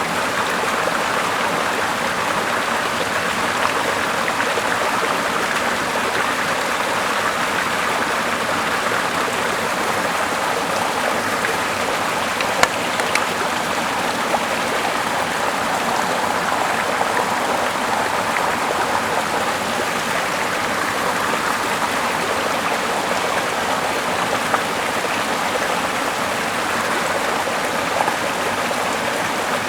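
Steady rushing water, with a few small clicks over it.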